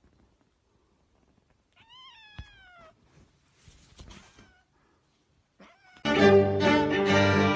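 A domestic cat meows once, a drawn-out meow falling in pitch, followed by a fainter short call about two seconds later. About six seconds in, loud violin music starts.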